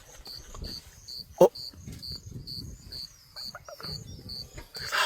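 Insect chirping steadily in the background, a short high chirp repeated about twice a second.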